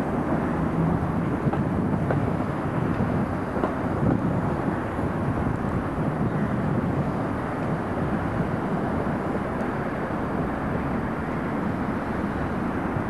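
Two-car Tatra trams rolling past at a distance: a steady rumble of steel wheels on rail, with a few faint clicks in the first few seconds.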